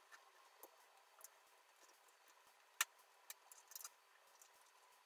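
Plastic Lego pieces being handled and pressed together by hand: a few faint, sharp clicks and taps, the loudest about three seconds in, followed by a quick run of small clicks.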